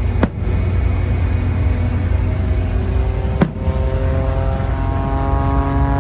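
Propeller airplane's piston engine droning steadily. Its pitch rises slowly through the second half. Two sharp clicks, about three seconds apart, cut through it.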